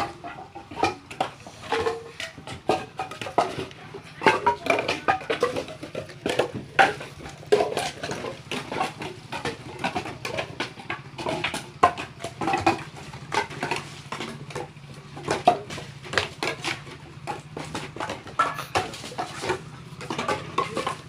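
Wooden boards and timber being unloaded by hand, clattering and knocking against each other in quick, irregular clacks, over a faint steady low hum.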